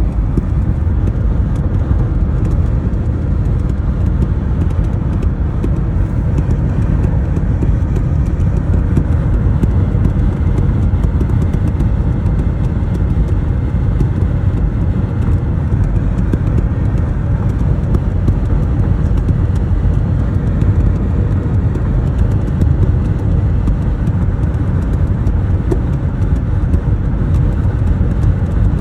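2022 Ford Escape SEL driving at highway speed: a steady, loud low rumble of road and tyre noise. Through it comes the flapping or thumping that the owner places at the right wheel and rear of the car.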